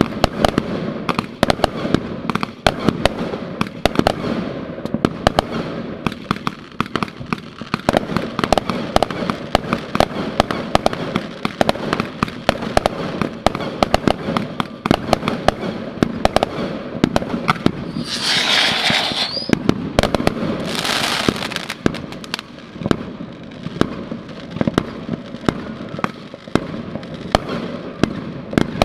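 Fireworks display: a dense, rapid string of bangs and pops as multiple shots launch and burst. About two-thirds in come two loud hissing rushes of about a second each.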